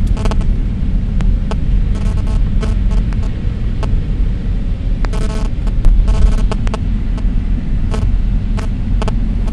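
Car driving along a road: a steady low engine and road rumble, with scattered short clicks and crackles.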